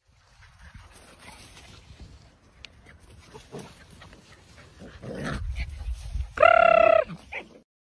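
Faint rustling, then a single loud, high-pitched puppy yelp lasting about half a second near the end.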